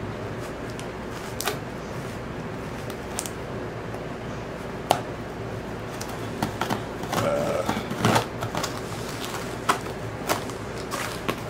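Scissors cutting open a cardboard record mailer: scattered sharp snips and clicks, with cardboard scraping and rustling about seven seconds in.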